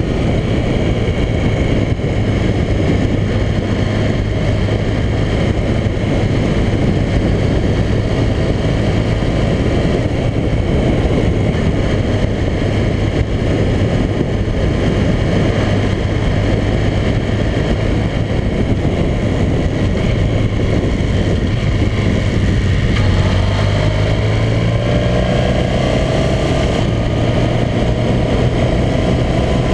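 Motorcycle engine running steadily while riding, under a constant rush of wind and road noise. A little over three-quarters of the way in, the engine pitch rises as the bike accelerates.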